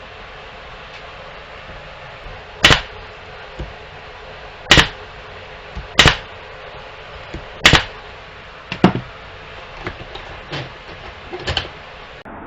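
Pneumatic brad nailer firing five sharp shots about one to two seconds apart, driving brads into the wooden legs and supports. Several lighter knocks of wood being handled follow near the end.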